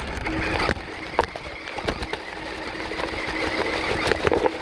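Radio-controlled truck's motor whirring, with scattered clicks and knocks.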